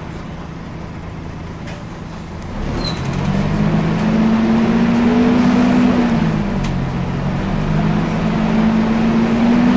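Volvo B10BLE bus's diesel engine running steadily with its cooling fan on. About two and a half seconds in, it pulls away: the engine note gets louder and rises, drops at a gear change about halfway through, then rises again.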